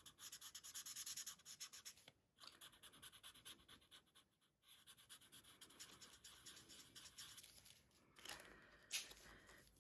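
Faint, quick scratchy strokes of a Stampin' Blends alcohol marker's felt tip colouring on heat-embossed vellum, with short pauses between runs of strokes. A soft knock near the end.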